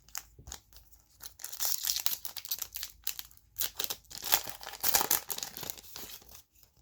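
Wrapper of a Donruss football card pack being torn open and crinkled by hand, in irregular crackling spells that are loudest in two stretches, about one and a half seconds in and again about four seconds in.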